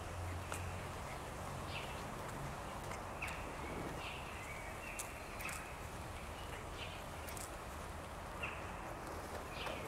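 Small birds chirping now and then, short high calls, some with a brief held note, over a steady low outdoor background.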